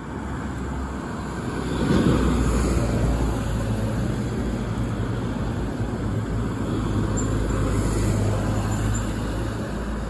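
Steady low rumble of a motor vehicle's engine, with a steady low hum, swelling about two seconds in and staying loud.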